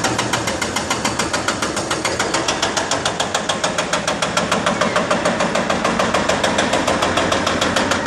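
Excavator-mounted hydraulic breaker hammering concrete, a steady rapid run of knocks at about six or seven blows a second over the machine's engine.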